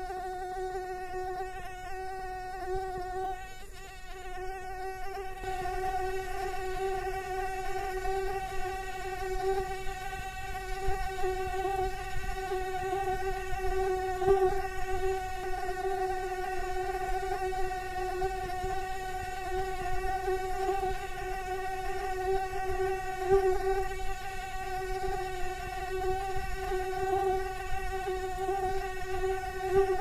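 Mosquito buzzing sound effect: one continuous high whining hum with a faint waver and no pauses.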